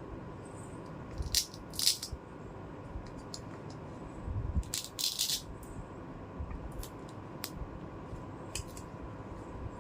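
Small plastic toy-kitchen pieces being handled: scattered light clicks and taps, with a short burst of rattling about a second and a half in and another about five seconds in.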